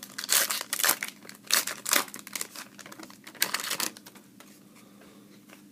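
Foil wrapper of a trading-card pack crinkling and tearing as it is opened and handled, in a quick run of sharp rustles that stops about four seconds in.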